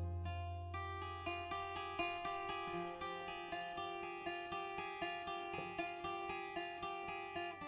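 Acoustic guitar picking single notes at an even pace, about three a second, over a sustained low bass note, with higher notes coming in a little under a second in: an instrumental passage of a folk song.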